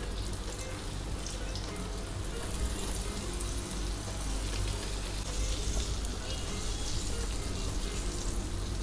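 Hot oil sizzling on a flat griddle as flour-coated drumstick pods are laid in one by one, the hiss growing stronger about halfway through as more pieces go in. Soft background music runs underneath.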